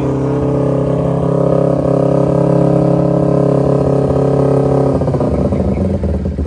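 Kawasaki Ninja 250 carburetted parallel-twin engine running at steady raised revs. About five seconds in the revs fall, and it drops to a lower, pulsing idle.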